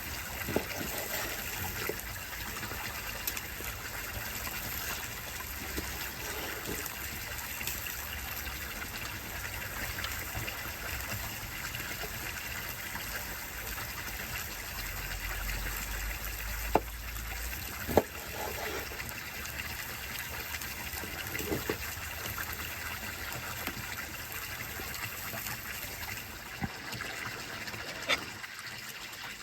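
Water running steadily, a continuous gushing trickle, with a few sharp clicks or pops here and there.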